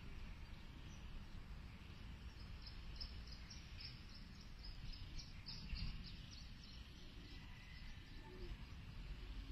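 Outdoor ambience: a steady low rumble with a quick run of short, high chirps, about four a second, from about two seconds in until near the end.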